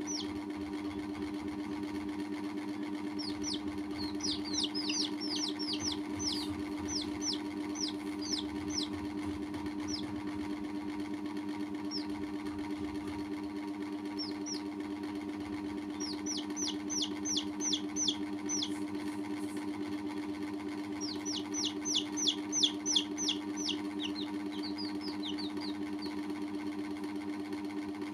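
Domestic chicks peeping in quick runs of short, high, falling chirps, with pauses between the runs and the loudest run about two-thirds of the way through. Under them is a steady low mechanical hum.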